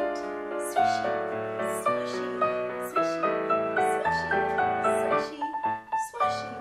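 Recorded piano music for ballet class, a running melody over chords with a steady beat.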